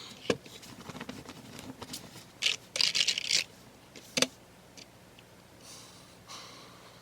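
Rustling and scraping of things being handled, loudest in a burst of about a second in the middle, with a sharp click near the start and another about four seconds in.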